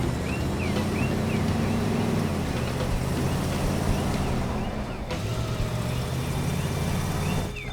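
A vehicle engine running steadily, its pitch drifting a little, with a faint high chirp repeating about twice a second over the first few seconds.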